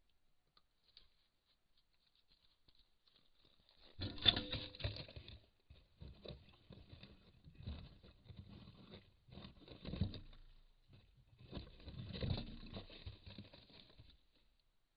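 A wolverine shut in a log box trap, gnawing and clawing at the wood to escape. The scraping and knocking come in several bursts from about four seconds in, through a trail camera's microphone.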